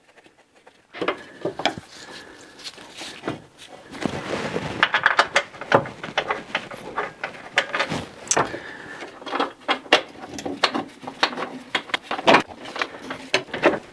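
Hand tools clicking and knocking on metal as suspension wishbone bolts are threaded in, with bursts of rapid clicks.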